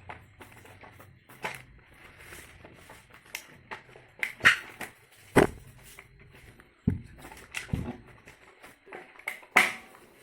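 Handling noise from an induction cooker being taken apart: scattered clicks and knocks from its casing and parts. The sharpest clacks come about halfway through and again near the end, with a couple of dull thumps in between.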